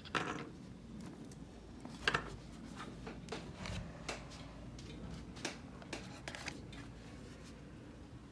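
Scattered small clicks and taps of hands handling a MacBook Pro's parts, with a sharper click near the start and another about two seconds in.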